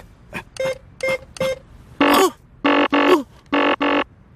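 Four short cartoon keypad beeps as a four-digit PIN is keyed into a cash machine, then a run of short harsh error buzzes from the machine rejecting it, with a man's groaning grunt between them.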